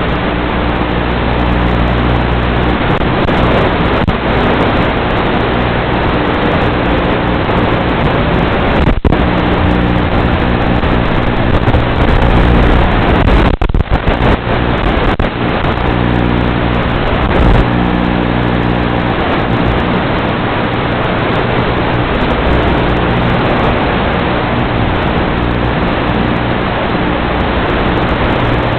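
Loud steady hiss of static on the audio channel of an analog FPV video link, with a low electrical hum under it that shifts in pitch. The hiss dips briefly a few times, most clearly about 9 and 14 seconds in.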